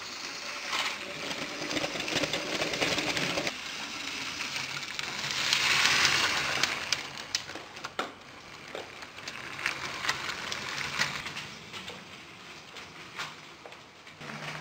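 A LEGO 9V train running on plastic track: the motor whirs and the wheels click and rattle over the rail joints. It grows louder about six seconds in as the train passes close, then fades back with a low steady hum.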